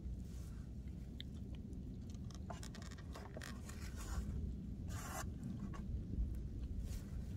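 A person chewing a mouthful of food with the mouth covered by a hand: faint clicks and short soft mouth noises, most around the middle, over a steady low rumble.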